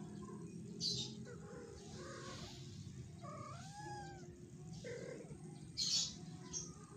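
Domestic cat meowing: a few short meows, one rising and falling in pitch just past the middle. Two short hissy bursts stand out, about a second in and near the end, the later one the loudest.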